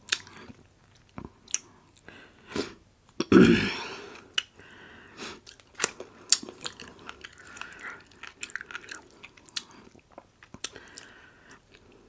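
A person chewing and biting food close to the microphone: irregular wet mouth clicks and crunches, with a louder bite about three seconds in.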